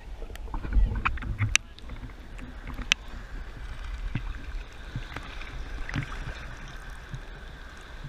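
Shallow, wavy seawater sloshing and lapping around a camera held at the surface, with a low rumbling churn in the first second and a half and a few sharp clicks against the camera.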